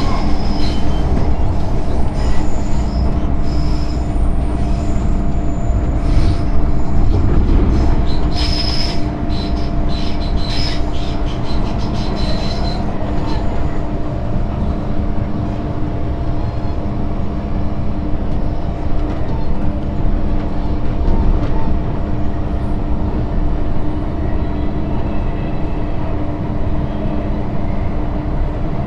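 MTR M-train electric multiple unit running along the track: a steady rumble of wheels with a constant hum underneath. High-pitched wheel squeals come and go through the first half, then stop about halfway through.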